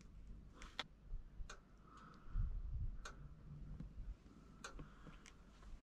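Faint, sharp ticks at irregular intervals, about one a second, with a brief low rumble a little after two seconds in.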